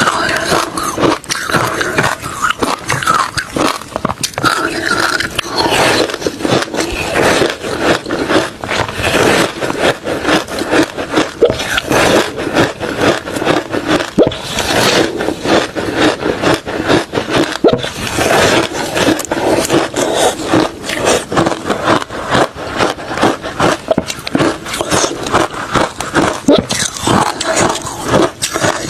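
Refrozen crushed ice and shaved ice being bitten and chewed, a dense, continuous crunching crackle with many sharp cracks a second.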